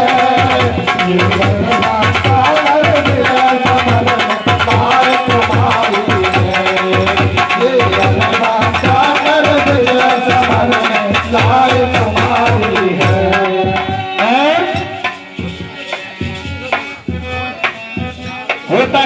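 Kirtan folk music: a wavering melody over a steady hand-drum beat. A few quick rising sweeps come about 14 seconds in, and then the music thins to sparse drum strokes near the end.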